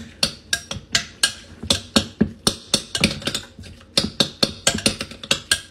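A metal fork clinking against the sides of a glass mixing bowl while beating an egg into softened butter, in a quick, uneven rhythm of about three or four clinks a second.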